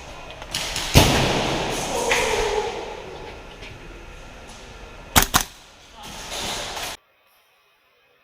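Clatter and thuds of players moving through an airsoft close-quarters arena, with a loud thump about a second in and two sharp cracks in quick succession about five seconds in. The sound then cuts off suddenly to silence.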